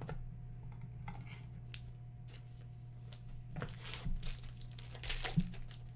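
Faint crinkling and a few soft clicks of trading cards and pack wrappers being handled, over a steady low hum.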